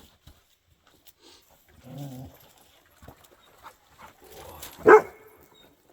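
A dog barks once, short and sharp, near the end. A brief low dog vocalization comes about two seconds in, among faint clicks and rattles.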